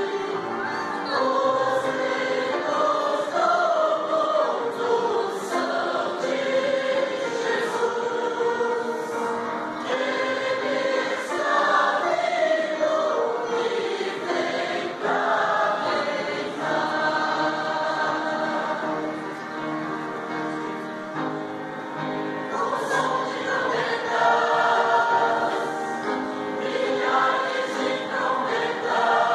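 Church choir singing a sacred song, voices holding and moving between sustained notes.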